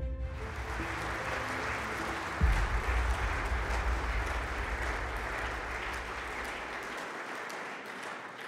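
Audience applauding, fading toward the end, over the close of a music soundtrack: a few held notes and a deep bass hit about two and a half seconds in that dies away.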